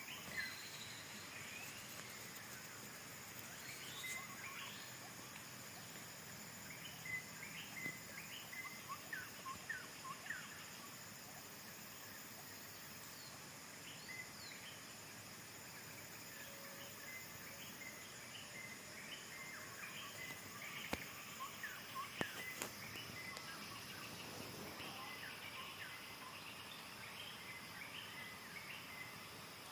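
Birds calling in short chirps and whistles, scattered and repeating, over a steady high-pitched insect drone.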